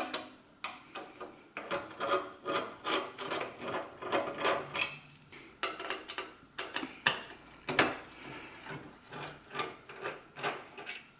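Screws being backed out of a steel computer chassis with a hand screwdriver: a run of irregular clicks and scraping rubs of the bit and screws against the metal, with one sharper click about eight seconds in.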